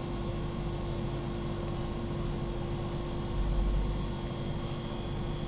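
Steady background hiss with a constant low electrical hum, and a brief low rumble about three and a half seconds in.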